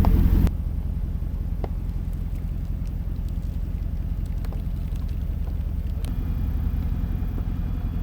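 Truck engine idling with a steady low rumble, louder for the first half second, with a few faint clicks over it.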